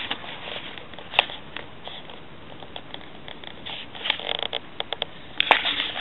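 Irregular rustling and crackling of dry grass, twigs and leaves being handled or brushed, with a sharp click about a second in and denser crackling around four seconds in and again near the end.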